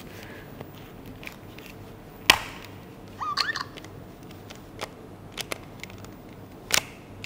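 Hard plastic clicks and knocks of ClicBot robot modules being handled and reoriented at their connector. A sharp click about two seconds in and another near the end, several lighter ticks, and a short squeak in between.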